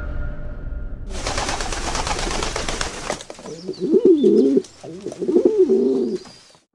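A pigeon cooing in two wavering low phrases, after about two seconds of a rushing noise.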